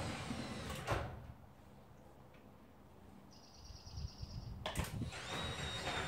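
Genie 3024 3/4 hp belt-drive garage door opener running and moving the door. About a second in it stops with a clunk. After a quiet stretch with a faint high pulsing tone, it clicks and starts running again near the end.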